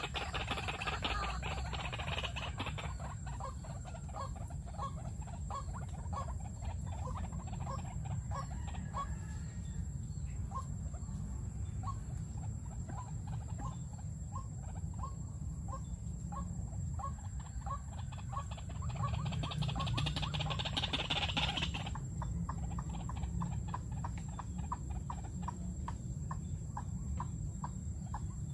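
White-breasted waterhen calling, a long series of short, evenly repeated notes at about one to two a second.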